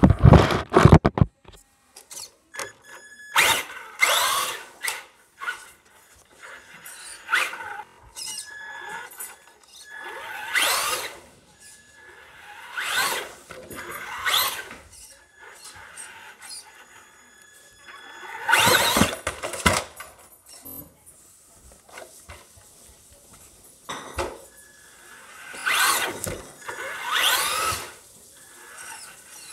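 Electric RC car motor whining in about ten separate bursts of acceleration, the pitch rising within each burst, quiet between them with no idle. A few loud knocks in the first second from the camera being handled.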